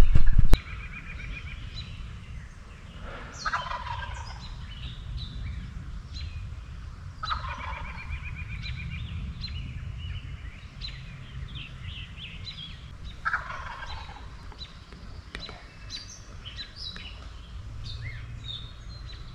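A wild turkey gobbler gobbling three times, several seconds apart, with small songbirds chirping in the background.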